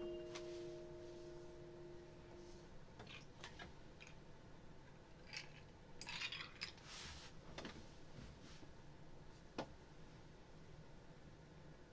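The last chord on a digital piano fades out over the first two to three seconds. Then come faint scattered clinks and small knocks as a drinking glass is picked up from beside the bench.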